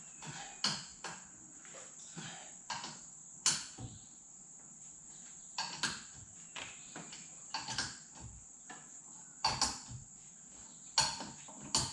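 Irregular metallic clinks and knocks of hand tools being worked at a vehicle wheel, about a dozen sharp strikes spaced unevenly.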